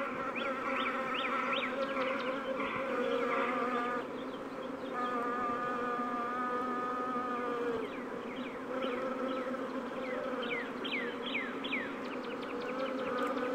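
A swarm of bees buzzing: a steady hum of many overlapping pitches. Clusters of short high chirps come in near the start and again about two-thirds of the way through.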